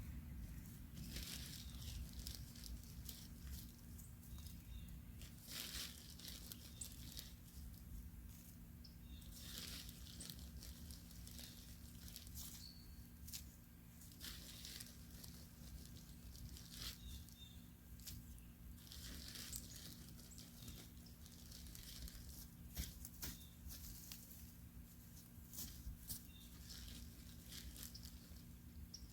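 Faint, irregular rustling and scraping as compost and granular fertilisers are handled and spread over garden soil, over a steady low hum.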